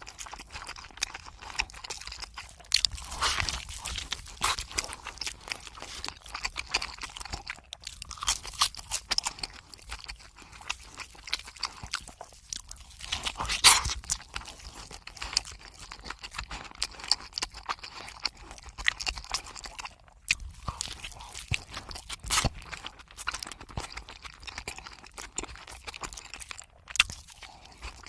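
Close-miked chewing and crunching of fast food: a continuous run of crisp crunches and mouth clicks.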